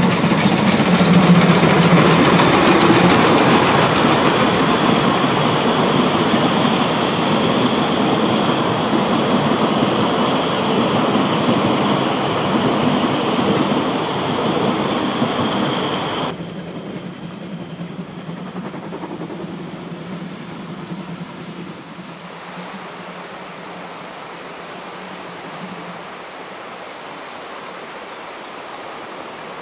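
A 750 mm narrow-gauge train running on the rails: loud clattering noise with a steady high-pitched squeal over it. About halfway through it cuts abruptly to a quieter, steadier rumble that fades further toward the end.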